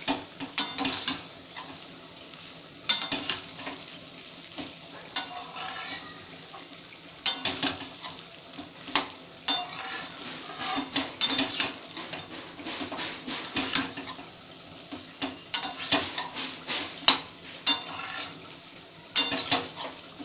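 Spatula scraping and clattering against a steel kadai as fried rice is stirred and tossed, in repeated strokes every second or two, over a faint frying sizzle.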